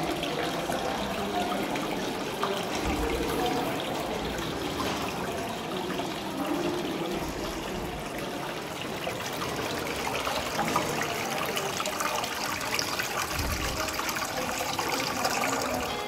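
Small indoor decorative fountain: water trickling and splashing down a stepped artificial-rock cascade into its basin, a steady, even splashing.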